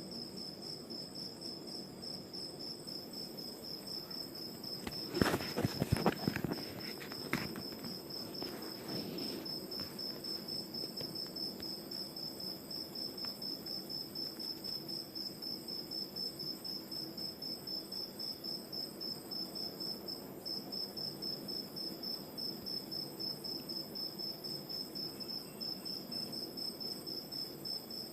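Crickets chirping in a steady, even pulsing trill that never stops. About five seconds in, a short cluster of sharp clicks and knocks is louder than the crickets for a couple of seconds.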